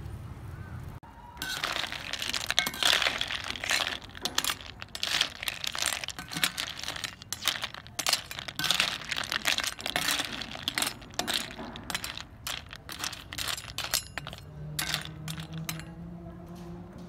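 Field snail shells clattering against each other and the aluminium wok as a metal slotted spoon stirs them, a quick irregular run of clicks and knocks starting about a second and a half in. A low steady hum comes in near the end.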